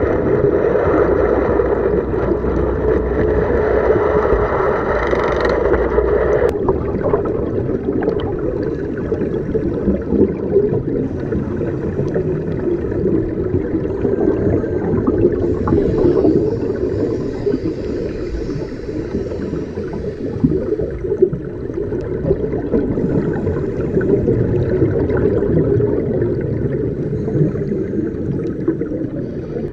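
Underwater ambience picked up by a camera in a diving housing: a steady, muffled low rumble with gurgling water. A brighter hiss on top cuts off about six seconds in.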